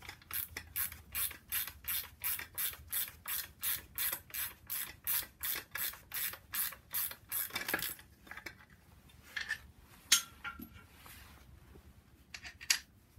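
Hand ratchet wrench spinning a bolt out with quick short back-and-forth strokes, about four clicking strokes a second for some seven seconds. After that come a few separate metal clicks and two sharp knocks, one about ten seconds in and one near the end.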